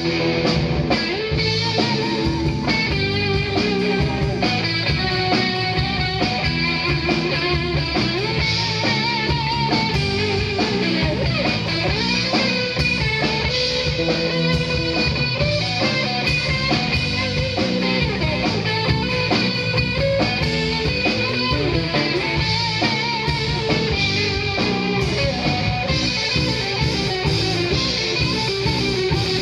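Live rock band playing an instrumental passage on electric guitar, electric bass and drums, with a steady beat and held guitar notes that waver in pitch.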